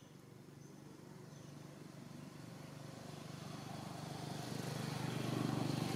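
A motor vehicle approaching, its engine and road noise growing steadily louder until it passes close near the end. A couple of short, faint high chirps in the first second and a half.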